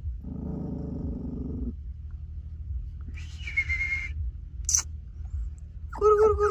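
Young puppies vocalising: a short low growl about half a second in, then a brief high whine, and steady whimpering from near the end.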